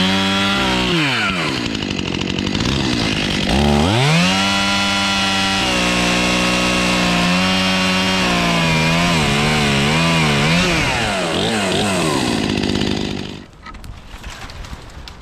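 Two-stroke Stihl chainsaw revving at full throttle while cutting storm-felled timber. It drops back about a second in, opens up again near four seconds, runs hard with its pitch wavering under load, then falls off and goes much quieter about thirteen seconds in.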